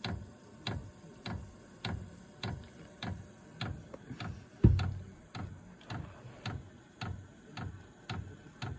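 Diesel heater fuel dosing pump clicking steadily, about one and a half to two ticks a second, while it primes fuel to the new heater on its first run. There is one louder thump about halfway through.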